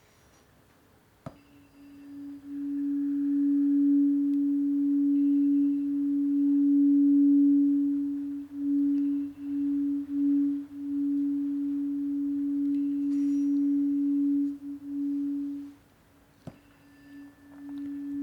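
Planetary tuning fork, the Mercury fork at about 282 Hz, struck with a sharp click about a second in and ringing one steady pure tone that dips briefly a few times. It dies away, is struck again with a second click, and rings anew near the end.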